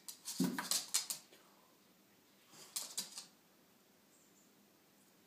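Border terrier snapping at wasps on a window pane: quick clicks of teeth and taps against the glass, one burst with a dull knock in the first second and a shorter burst about three seconds in.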